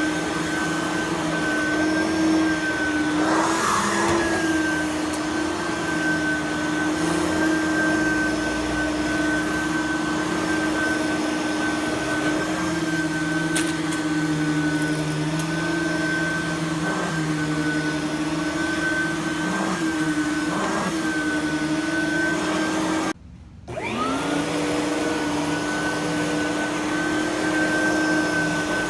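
Simplicity Freedom lightweight direct-air upright vacuum cleaner running steadily on carpet, with a high motor whine. The whine briefly drops out about 23 seconds in, then climbs back up to full pitch.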